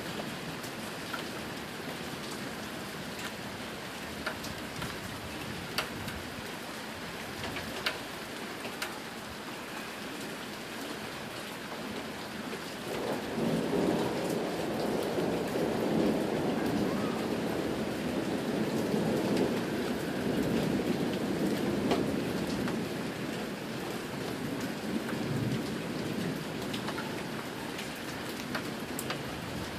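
Steady rain falling, with scattered drops ticking close by. About a third of the way in, a long roll of thunder rumbles for roughly ten seconds, then fades back into the rain.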